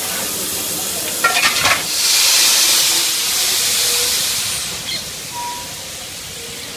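Steam locomotive letting off steam: a loud, high hiss that swells about two seconds in and eases off, after a brief sputter of rapid pulses about a second in.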